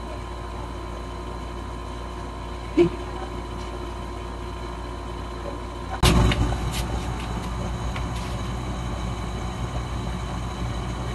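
Steady room hum. A brief short sound comes about three seconds in. About six seconds in, the background changes abruptly to a louder hum with a few light clicks.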